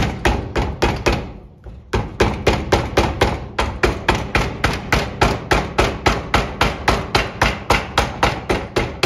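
Mallet striking a steel round bar in rapid, even blows, about four a second, with a short pause about a second in. The bar is driving a new rope rear main seal down into the groove of a Holden grey motor's rear main bearing cap held in a vise.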